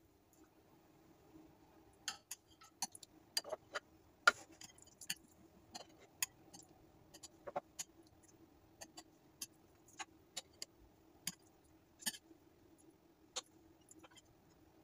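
A metal knife taps and scrapes against a glass baking dish as cut squares of set halwa are lifted out, giving irregular sharp clicks about once or twice a second. A faint steady hum sits underneath.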